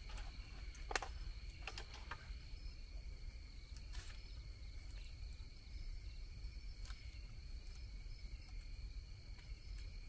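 Insects trilling steadily in two high-pitched bands, over a low rumble, with a few sharp clicks about one, two, four and seven seconds in.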